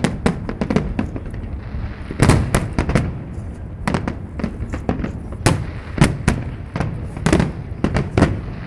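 Aerial fireworks shells bursting in irregular bangs, several in quick clusters, over a continuous low rumble from the distant display.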